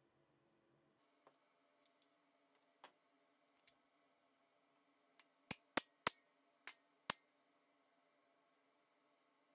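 Thin-walled square steel profile tubes clicking and clanking against each other as the slotted end of one tube is pressed down over another to form a T-joint. There are a few light clicks first, then about six sharp metallic clicks in quick succession around the middle.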